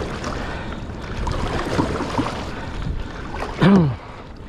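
Canoe paddle strokes dipping and splashing in choppy sea water, under a steady low rumble of wind and water. Near the end a man's voice gives one short sound falling in pitch, the loudest moment.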